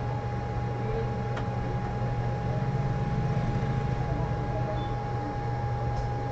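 Steady low machine hum with a constant thin tone above it, and a single faint click about one and a half seconds in.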